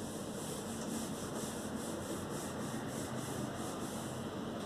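Cloth duster rubbing marker off a whiteboard in repeated back-and-forth strokes, about two or three a second.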